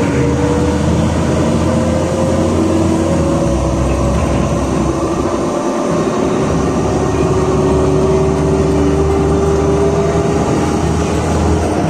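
Inside a LiAZ 5292.67 city bus driving at speed: the steady rumble of its YaMZ-53624 compressed-natural-gas engine and the road noise, with a whine that slowly rises in pitch through the middle.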